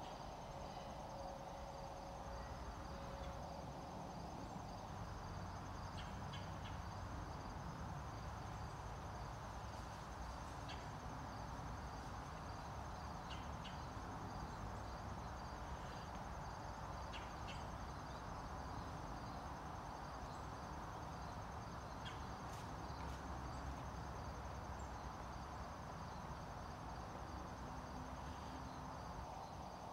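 Crickets and other insects chirping steadily, a high-pitched trill with a repeating chirp, over a faint low background rumble.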